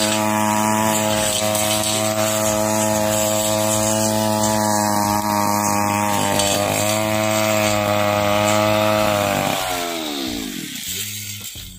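Petrol brush cutter fitted with a steel blade, running at full throttle through dry dead grass with a steady high engine note. About ten seconds in the throttle is let off and the engine note falls away as it slows.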